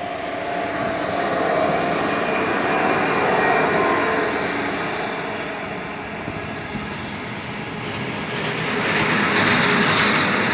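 BB 37500 electric locomotive approaching and passing at the head of a container freight train, followed by the container wagons rolling by on the rails. The sound is a steady rush that grows louder near the end as the wagons pass close.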